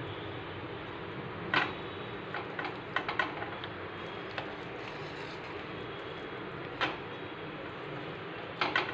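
Metal ladle scraping and clinking against the pressure cooker and steel pan as cooked rice is scooped and tipped across, in scattered sharp knocks over a steady background hiss.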